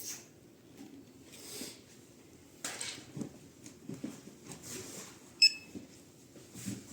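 Soft handling and rustling noises around a handheld Extech refrigerant leak detector, with one short, high-pitched electronic beep from the detector about five and a half seconds in.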